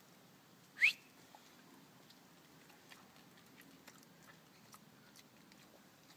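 A dog gives a single short, high squeak that rises in pitch, about a second in, followed by a few faint light clicks.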